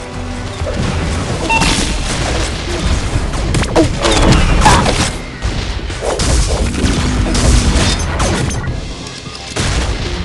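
Fireworks going off: a rapid run of bangs and crackling, loudest about four to five seconds in, easing briefly near the end before picking up again.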